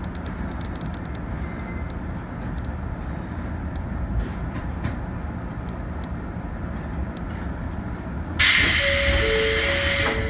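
Izuhakone Railway 3000 series electric train standing at a platform with a steady low hum. About eight seconds in, a sudden loud hiss of compressed air starts as the pneumatic doors work, with electronic tones and short beeps sounding over it.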